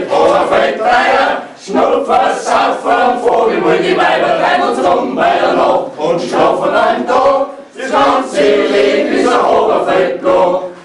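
A group of voices chanting loudly together, in phrases broken by two short pauses.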